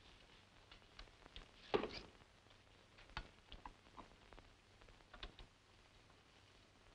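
Quiet room with scattered soft clicks and knocks from a hand working a phonograph turntable, the loudest a single knock near two seconds in.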